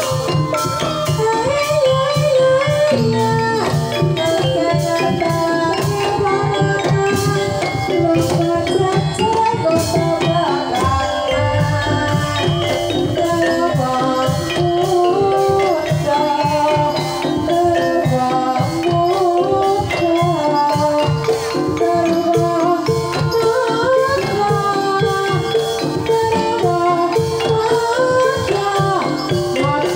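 Javanese Banyumasan gamelan playing a tayub piece: kendang drums, a wooden-keyed xylophone struck with mallets and bronze gongs, with a sinden singing a wavering melody over them.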